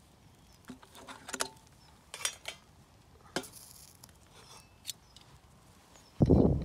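Metal clinks and knocks as a stainless frying pan and the Kelly Kettle's burning fire base are set down and fitted together, in several short bursts. Near the end a loud low rumble sets in.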